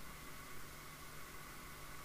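Faint steady hiss with a constant low hum; no distinct event stands out.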